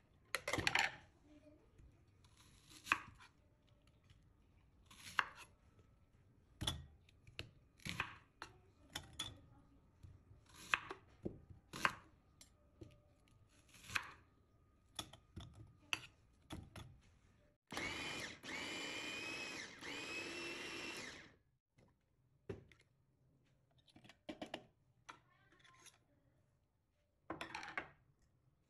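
Chef's knife cutting onions on a wooden cutting board, sharp knocks every second or two. About two-thirds of the way through, an electric food chopper with a glass bowl runs steadily for about three and a half seconds, mincing the onions, then stops.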